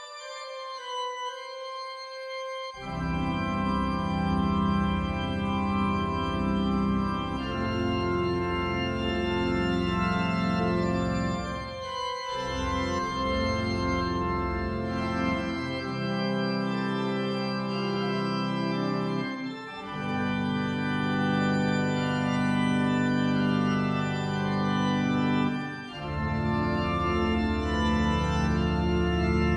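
Background organ music of long held chords. Low bass notes come in about three seconds in, and the chord changes every few seconds.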